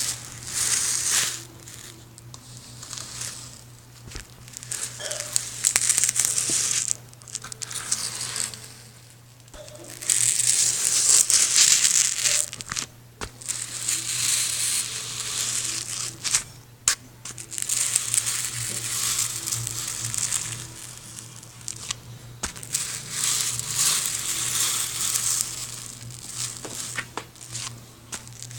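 Repeated bursts of crinkling, crumpling noise, each lasting one to three seconds with short pauses between, over a steady low hum.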